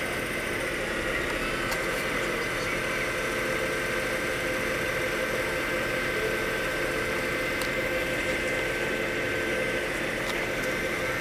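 Heavy-duty tow truck's engine running steadily to power its hydraulic knuckle-boom crane as the winches lower a suspended school bus, with a steady high-pitched whine over the engine noise.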